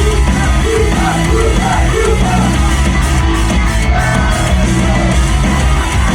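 Loud idol-pop music with a rock-style backing playing over a live venue's sound system.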